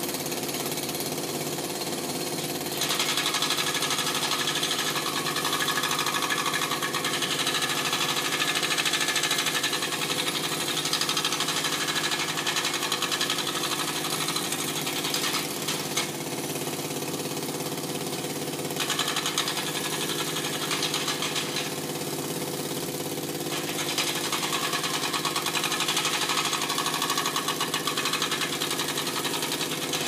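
Construction-site machinery: an engine running steadily under rapid 'dadadada' pounding that goes on in long stretches, stopping briefly twice, about halfway through and again a few seconds later.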